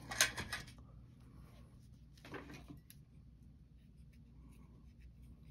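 Mostly quiet, with brief handling sounds of small tools on a rubbery work mat: a short rustle and knock at the start and another about two seconds in, as digital calipers are picked up to measure a washer.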